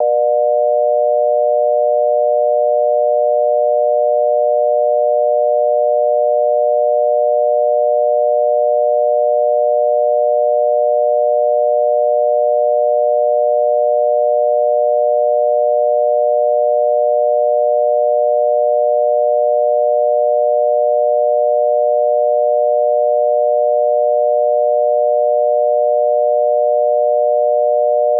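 Obsolete Philippine telephone dial tone: a 600 Hz tone amplitude-modulated by 120 Hz, sounding continuously without any break or cadence. It signals that the exchange is ready for the caller to dial.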